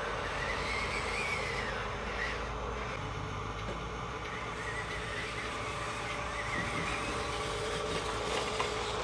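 Electric motors and gearboxes of Huina remote-control toy excavators running, with a steady hum and a high whine that wavers up and down in pitch.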